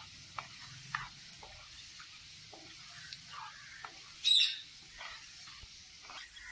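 Chopped ginger sizzling in hot sunflower oil in a nonstick pan, stirred with a wooden spatula: a steady soft sizzle with scattered small scrapes and spatters, and one louder, brief sharp sound about four seconds in.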